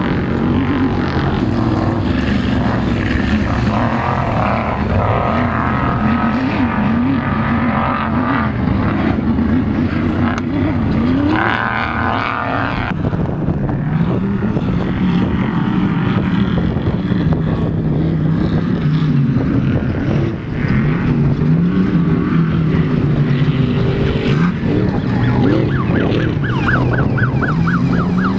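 Off-road race engines of Trophy Trucks and Class 1 buggies running hard. Several engines overlap, their pitch rising and falling again and again as they rev and shift through the gears.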